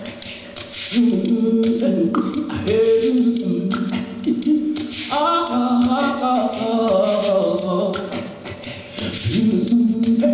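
Several voices singing unaccompanied in harmony, in phrases that break off and restart, with a dry rattling percussion over them.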